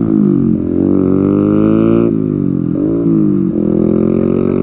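Bajaj Pulsar 150 single-cylinder engine through an aftermarket SC Project exhaust, accelerating hard through the gears. Its pitch climbs and then drops at each of about four upshifts.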